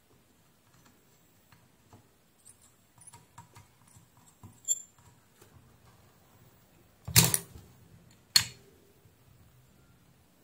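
Small clicks and handling sounds from soldering and tool work on a USB-C cable connector, with two louder short knocks about a second apart late on.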